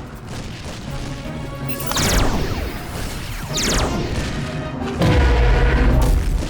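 Cartoon ray-gun zap sound effects over background music: two quick falling zaps, about two seconds in and again before four seconds, then a low boom from about five seconds to the end.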